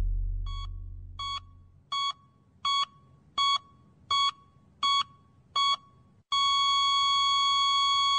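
Heart monitor beeping steadily, about three beeps every two seconds, then switching a little past six seconds in to one continuous tone: a flatline, the sign that the patient's heart has stopped. A low music drone fades out under the first beeps.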